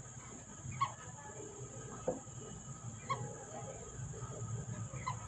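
Whistling ducks giving short squeaky calls, four of them spaced a second or so apart, over a steady low hum.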